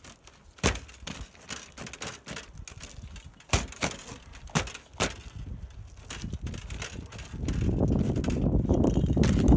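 Metal frame and chain of a homemade aluminium-tube kayak trolley clinking and knocking as it is handled and folded, a handful of separate sharp clanks. Near the end a louder, rough rumbling scrape takes over as the trolley is shifted about.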